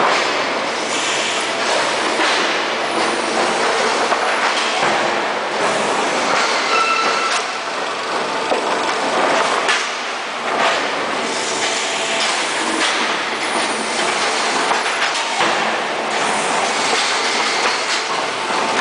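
Block-making machine line running: wooden production pallets rattle and clank along the conveyor and pallet feeder over a steady machinery din, with a brief squeal about seven seconds in.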